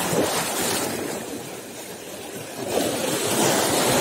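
Small sea waves washing over and around shoreline rocks, the surf swelling twice, the second surge near the end.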